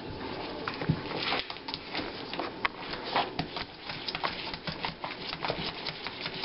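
A black borador puppy's claws clicking and scratching on a vinyl tile floor as he paws and digs at it. The clicks come in a quick, irregular patter that starts about a second in, with one louder knock near the start.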